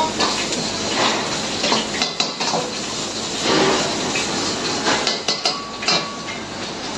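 Metal ladle clanging and scraping against a steel wok as vegetables are stir-fried, with irregular sharp knocks every second or so. Underneath runs the steady rush of the gas wok burner.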